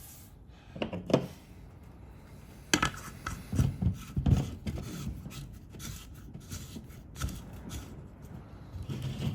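Scattered clicks, light knocks and rubbing as chainsaw parts are handled and pushed back into place by hand, with a few sharper knocks about three to four and a half seconds in.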